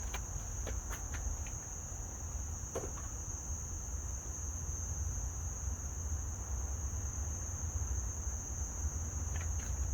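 Steady high-pitched insect chirring, with a low rumble underneath and a few light clicks in the first three seconds.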